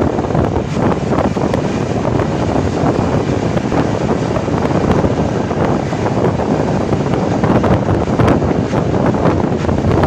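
Wind rushing over the microphone of a moving bus passenger's camera, over the steady noise of the bus running along the road. The noise is loud and continuous.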